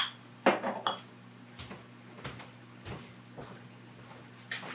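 Scattered light knocks and rustles of someone fetching a jar from a kitchen pantry: a sharp click at the start, soft footfalls about every half-second in the middle, and a container being handled near the end, over a faint steady hum.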